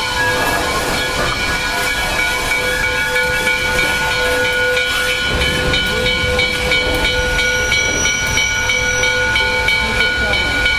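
Canadian National 3254, a 2-8-2 steam locomotive, giving off a steady hiss of steam while it turns on a turntable, with several steady tones running through the hiss.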